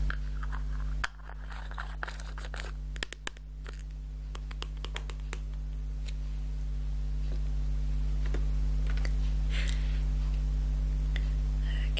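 Small tubs of texture gel being handled and a screw lid twisted: scattered sharp clicks, then a short scraping rustle near the end. A steady low electrical hum runs underneath.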